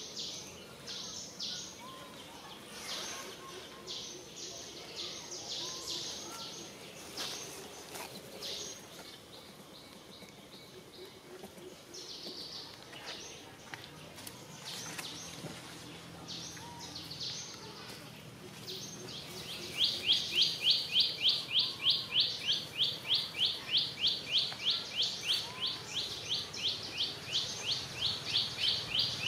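Outdoor birdsong: short high chirps repeated over and over. About two-thirds of the way in, a loud, fast, even series of short pulsing calls, about four a second, starts and runs on as the loudest sound.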